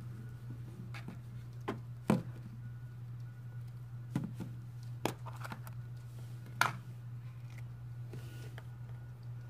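Scattered sharp clicks and taps of plastic slime eggs and their contents being handled, about eight in all, over a steady low hum.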